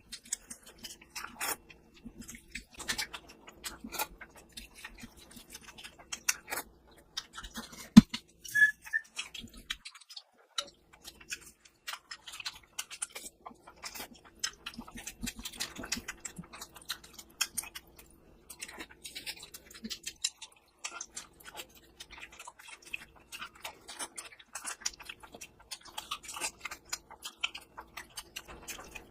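Close-miked chewing and eating of mutton curry with rice: a steady run of small wet mouth clicks and smacks. There is a sharper knock about eight seconds in, over a faint steady hum.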